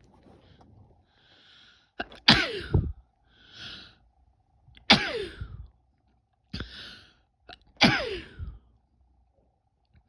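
A woman sneezing three times, each a loud "achoo" whose pitch falls sharply, with breathy gasping in-breaths building up before them.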